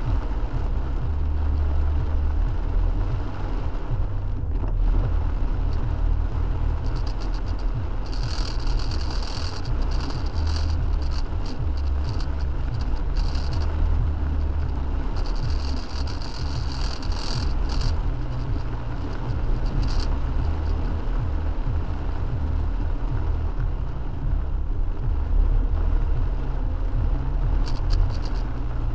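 Steady low rumble of a car driving on a rain-soaked road, heard from inside the cabin. A higher crackling hiss comes in about seven seconds in, fades out, and returns around sixteen seconds.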